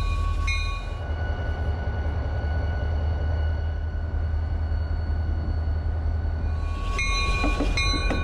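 Burlington Northern diesel-electric locomotive's engine rumbling steadily at low throttle while its bell rings. The bell strikes about every three-quarters of a second at the start, stops about a second in, and rings again twice near the end.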